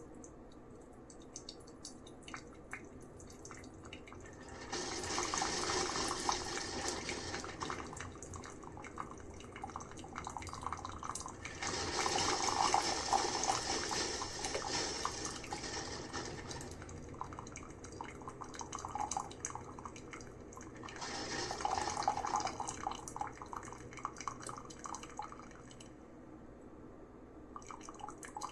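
Famiworths single-serve coffee maker dispensing into a cup: liquid streams in three surges of a few seconds each, about five, twelve and twenty-one seconds in, with dripping in between.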